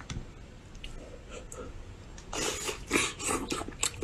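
Shell of a boiled spiny lobster being broken and pulled apart by hand. A few light clicks come first, then a run of sharp crackles in the second half.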